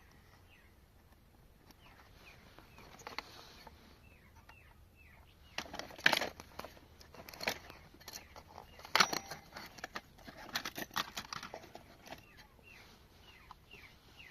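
A run of sharp clicks and knocks, as of small hard parts being handled, loudest about six and nine seconds in, with faint small-bird chirps in the background.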